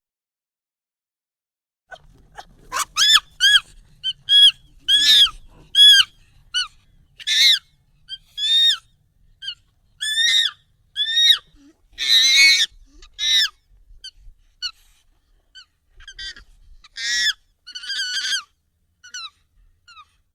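Monkey calls, sped up and pitched up: a run of short, high, squeaky calls at irregular intervals, starting about two seconds in, with one longer, harsher call near the middle.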